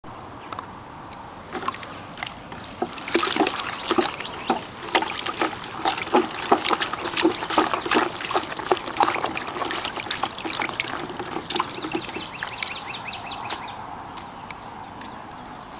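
A hand stirring diluted car wash concentrate in a plastic bucket to mix it and work up suds: irregular sloshing and splashing that thins out about thirteen seconds in.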